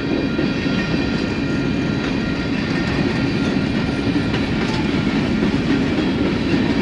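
Union Pacific freight train's cars rolling past close by: a steady loud rumble and clatter of steel wheels on the rails, with faint steady high ringing tones over it.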